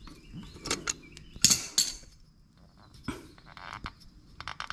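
Scattered metal clicks and creaks as large pliers turn a seized, broken-off bolt out of a Briggs & Stratton 8 hp engine's aluminum casting, gripping a nut welded onto the bolt, with a quick run of small clicks near the end.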